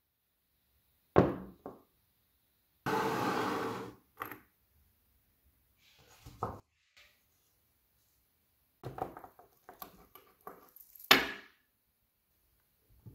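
A bicycle chain and a chain-breaker tool being handled and set down on a wooden tabletop: a sharp knock about a second in, a rattle lasting about a second, then scattered clicks and clacks of metal links, with another loud knock near the end.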